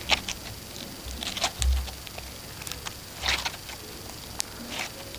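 Galaxy slime being squeezed and kneaded in the hands, giving irregular wet squelches and small crackling pops, with a low thump about one and a half seconds in.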